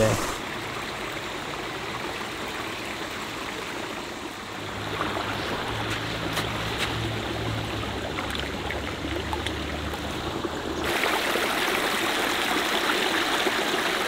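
Shallow creek water running over rocks in a small waterfall, a steady rush that grows louder about eleven seconds in.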